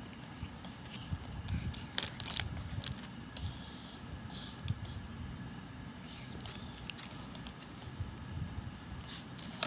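Plastic packets of polymer clay crinkling and tapping as they are set down on a table, a few sharp clicks over a steady low background hum.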